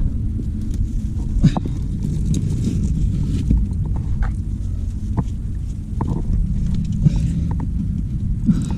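Steady rumble of wind on the microphone, with scattered clicks, knocks and scrapes of a climber's gear and hands against the rock of a chimney.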